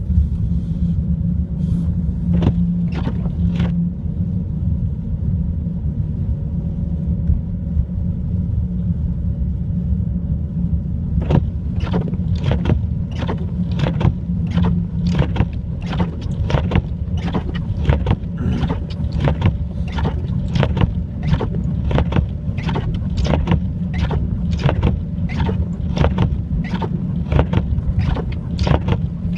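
Heavy wind rumbling and buffeting on the microphone during a snowstorm. From about a third of the way in, short sharp crunches come evenly, about two a second.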